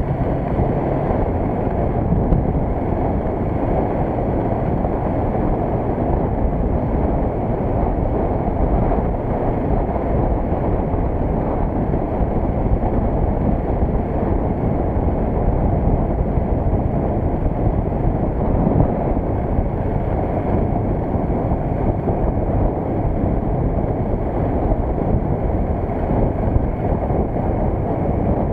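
Steady wind rumble on the microphone from a Suzuki GS500 motorcycle being ridden, with its engine and road noise underneath.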